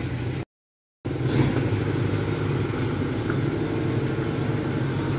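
Kubota DC-105X combine harvester's diesel engine running steadily under load as the machine climbs a steep embankment. The sound cuts out for about half a second near the start, with a short knock just after it resumes.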